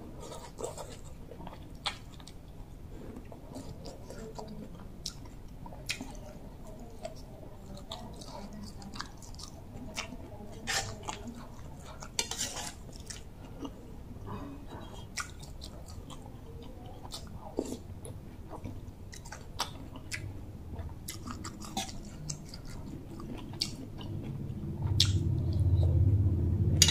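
A person chewing mouthfuls of bamboo-shoot soup vegetables and sticky rice, with scattered small mouth clicks and smacks.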